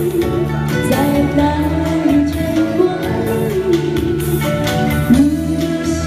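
A woman singing a pop song live into a microphone over instrumental backing, holding and sliding between sustained notes.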